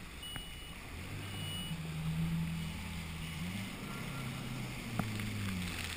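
Jet ski engine running at low speed, its hum rising about a second in and easing back down later, over water splash, with a few faint short high beeps.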